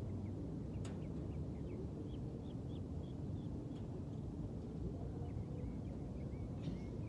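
Birds chirping in a string of short high notes over a steady low rumble, with a single sharp click about a second in.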